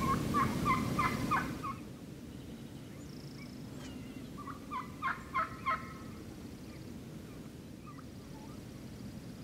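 Wild turkey gobbler gobbling twice, each gobble a rapid rattling run of notes lasting a little over a second, the second coming about four seconds after the first.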